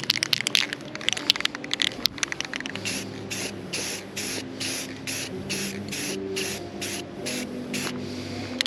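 Aerosol spray paint can being sprayed in short, even bursts, about two or three hissing puffs a second, as a part is given a coat of paint. This follows a couple of seconds of rapid clicking.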